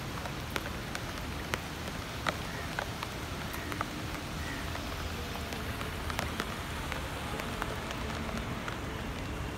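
Heavy rain falling, a steady hiss with scattered sharp taps of drops striking a hard surface close by.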